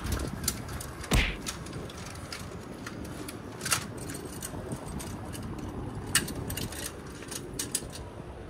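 Wind buffeting the microphone on a high rooftop: a steady rough rumble, broken by scattered short clicks and knocks, the loudest about a second in.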